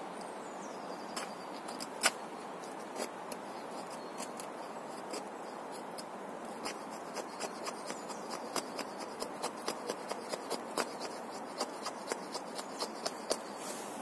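Leatherman Wave multi-tool blade carving a feather stick: a run of short scraping strokes as the edge shaves curls off a wooden stick, sparse at first and then coming about two or three a second in the second half.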